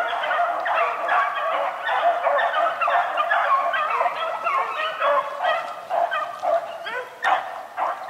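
A pack of beagles baying together while running a rabbit, many voices overlapping in a continuous chorus.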